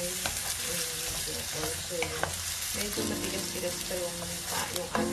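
Cabbage and carrot strips sizzling in a non-stick wok as they are stir-fried with a wooden spatula, with a few sharp scrapes and taps of the spatula against the pan.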